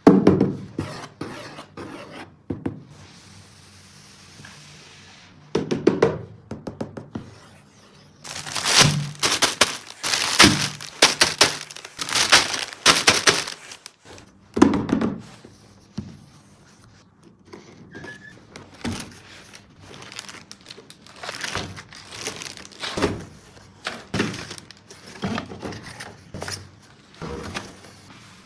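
Plastic toy track pieces knocking and clicking as they are handled, with a dense run of rattling clatter about a third of the way in.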